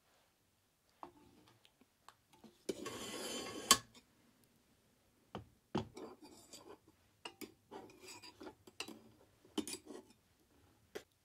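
An iron pot scraped along a metal hibachi trivet for about a second, ending in a sharp clank. After it comes a run of light metal clicks and short scrapes as a wire grilling net is handled and set on the trivet.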